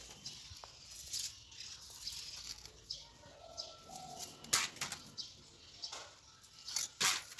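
A small hand trowel scraping and digging into loose garden soil, with two louder scrapes, one about halfway and one near the end. Birds call faintly in the background.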